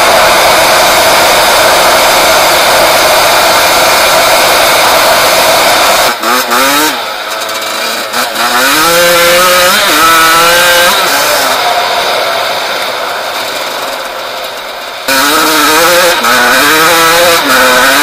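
1996 Yamaha YZ125's 125 cc two-stroke single-cylinder engine. For the first six seconds it is held at high revs at speed under heavy wind rush; after that the engine note rises and drops again and again as the bike is revved up and shifted through the gears.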